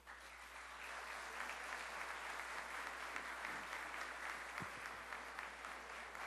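Audience applauding: many people clapping in a dense, steady patter that starts abruptly.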